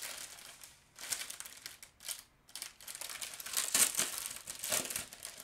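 Small plastic bags of diamond painting drills crinkling and rustling as they are picked up and handled, in irregular bursts with a short lull about two seconds in and the loudest crinkle a little under four seconds in.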